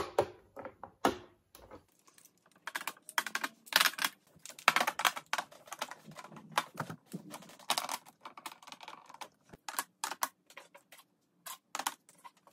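Plastic makeup tubes and cases clicking and tapping against clear acrylic drawer organizers as they are set down in rows, in quick irregular runs of clicks.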